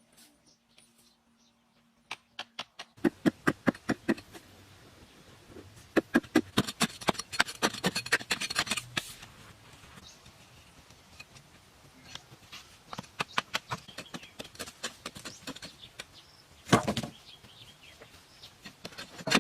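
Rapid repeated strokes of hand work, coming in runs of several seconds that start about three seconds in, with one louder hit near the end.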